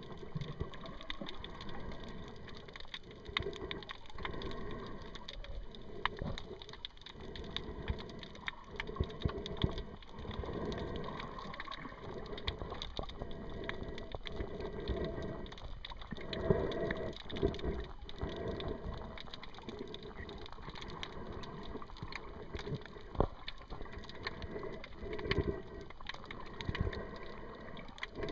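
Muffled water noise picked up by a submerged camera: sloshing and rushing with uneven swells every second or two, and faint crackling.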